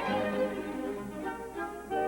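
Orchestral background music led by violins, playing held notes.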